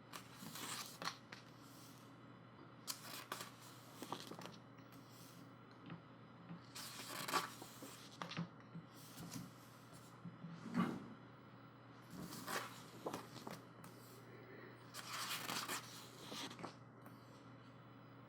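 Glossy pages of a photobook being turned by hand: a series of short papery swishes and rustles, one every couple of seconds.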